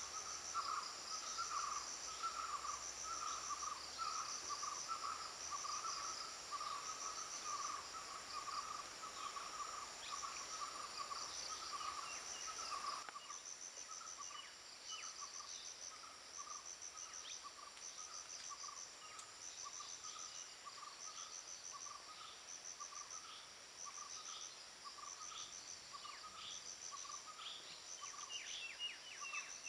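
Forest insect chorus: high trills in short repeated bursts, with a lower call repeating about twice a second underneath. Scattered short bird chirps join in the second half.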